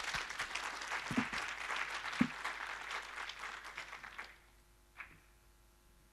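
Audience applauding a finished talk, the clapping dying away about four seconds in. Two dull thumps sound among the clapping, and there is one short sharp click about a second after it ends.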